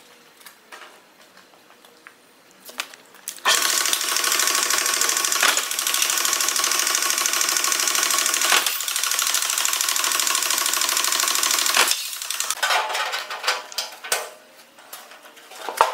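Belt-driven power guillotine shear for sheet metal running with a steady mechanical whirr for about eight seconds, with two sharp knocks while it runs, then shutting off. Before and after it, small clicks and knocks of sheet metal and tools being handled.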